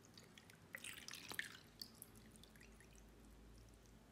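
Faint sound of water poured from a jug into a glass of ice cubes, with a flurry of clicks and crackles from the ice about a second in that then dies away.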